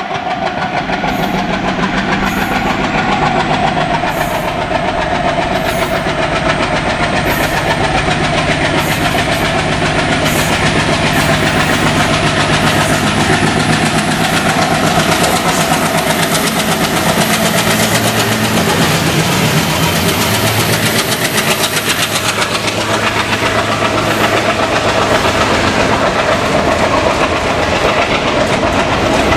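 WDG-3A diesel-electric locomotive's ALCO 16-cylinder engine working hard at full power as it accelerates a long passenger train, growing louder as it approaches and passes, with a faint high whine rising in pitch. About three quarters of the way in, the engine gives way to the clickety-clack of the coaches' wheels over the rail joints.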